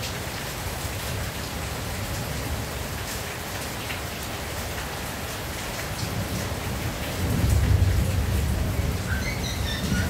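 Steady rain falling on a tin roof, with a low rumble of thunder swelling up about seven seconds in.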